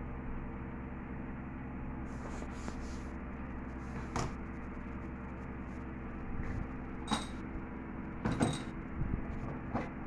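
Steady hum with several short rustles and knocks of handling noise, the loudest about four, seven and eight and a half seconds in.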